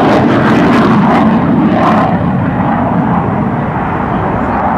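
Loud jet noise from a fighter jet flying past in a banking turn, a steady rushing roar whose high hissing edge fades about two seconds in.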